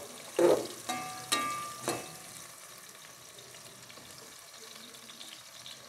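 Sliced onions frying in hot fat in a stainless-steel pot, a steady sizzle. A metal fork stirring them knocks against the pot about four times in the first two seconds, and some knocks leave a short ring.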